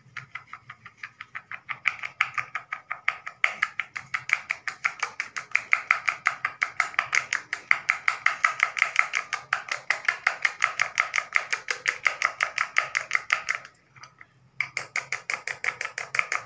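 Metal spoon clinking against a glass bowl in rapid, even strokes as malai is beaten with sugar to make it fluffy, with a pause of about a second near the end before the beating resumes.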